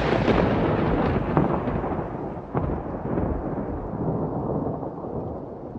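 Thunder sound effect: a loud rolling rumble that slowly fades over several seconds, with a few sharp cracks in it.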